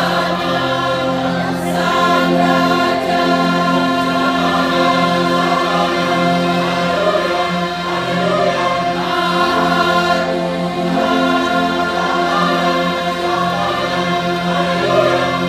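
A choir singing in harmony, several voice parts together, with long held chords that change every second or two.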